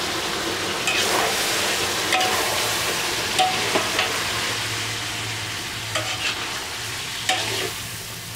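Catfish stir-fry sizzling in a wok while a spatula scrapes and knocks against the pan every second or so, over a steady low hum.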